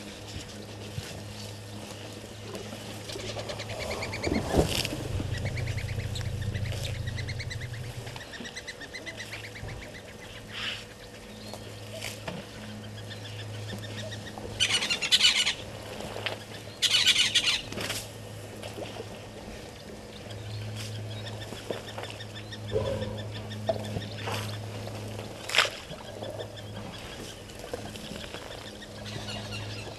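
Birds calling, with scattered calls and two loud, rapid trilled bursts about halfway through, over a low hum that comes and goes.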